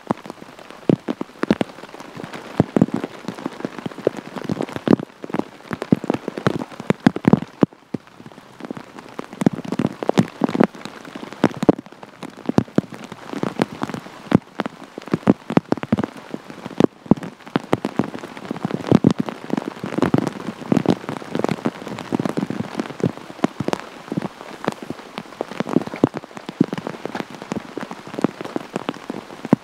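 Heavy rain falling, with many close, irregular drop impacts ticking over a steady hiss.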